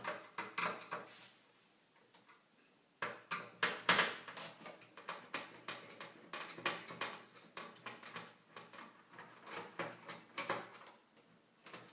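Irregular clicks and light clatter of a screwdriver and small metal and plastic parts as the CPU and RSX heat-spreader holders are worked loose from a PlayStation 3 motherboard. There is a short lull about two seconds in, then dense handling clicks until near the end.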